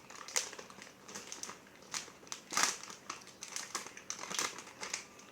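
Pop Star cheese popcorn snack bag being handled, crinkling in irregular bursts, with several louder crackles.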